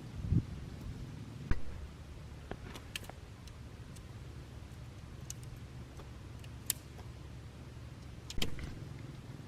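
A steady low rumble with a handful of sharp clicks and clinks scattered through it.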